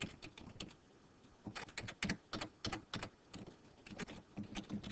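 Typing on a computer keyboard: irregular runs of quick key clicks, with a short pause about a second in.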